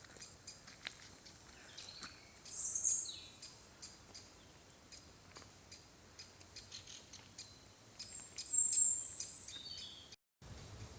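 Woodland birdsong: two loud, high-pitched bursts of bird calling, about two seconds in and again about eight seconds in, over many faint scattered ticks and chirps. The walker takes the calling bird for a woodpecker.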